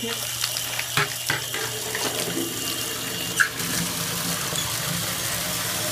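Tap water running into a plastic bucket as it is rinsed out and refilled. A few knocks from the bucket being handled break through the water noise, the sharpest about three and a half seconds in.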